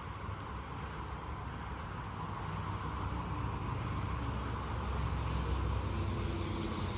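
Steady low rumble of a motor vehicle that grows gradually louder as it draws near.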